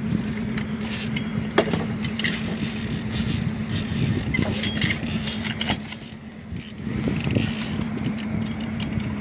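A boat motor running at a steady pitch, with irregular clicks and knocks from the fishing reel and rod as a hooked sturgeon is being played.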